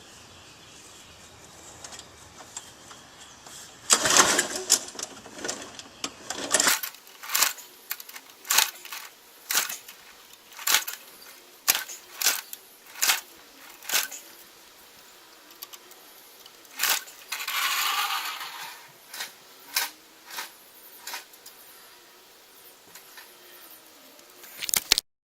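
Lawnmower recoil starter pulled with a loud rasping rush, the engine not catching, followed by a string of sharp clicks about once a second.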